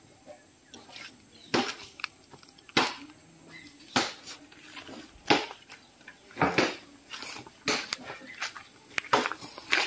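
Someone coaxing a newly lit wood fire: a series of short scratchy hisses, roughly one a second, as the kindling is worked to make it catch.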